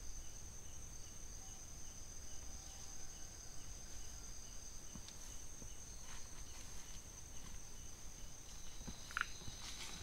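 Night insects, chiefly crickets, trilling steadily at a high pitch, with a fainter chirp pulsing about three times a second through the first half. A short chirp sounds near the end.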